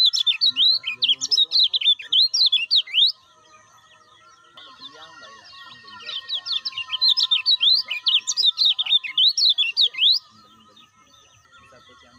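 Caged kecial kuning, a yellow white-eye, singing in two fast, chattering bouts of high chirps: one stops about three seconds in, and the other runs from about five to ten seconds in.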